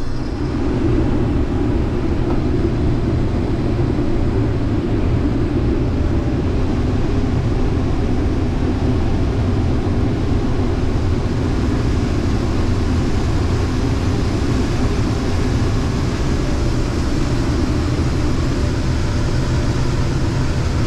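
Case IH 2388 combine running, a steady, unbroken machine drone.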